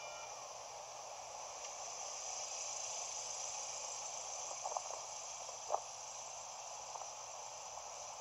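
Steady faint hiss with a few short, sharp clicks about halfway through.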